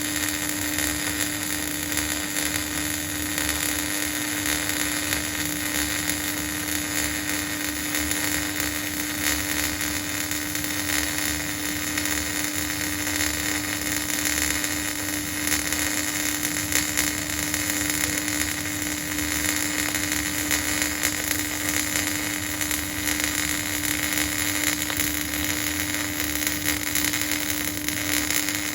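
Electric welding arc running steadily: a continuous hiss with a steady hum under it, unbroken throughout.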